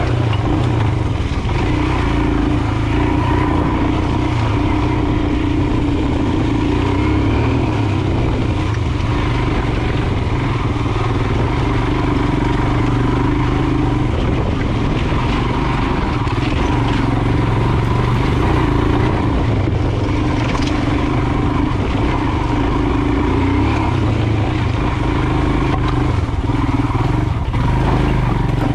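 Royal Enfield Himalayan's 411 cc single-cylinder engine running at a steady, even pace while the bike is ridden along a rough gravel trail.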